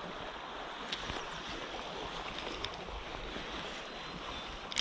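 Steady rushing of a river's current over a riffle, with a single sharp click near the end.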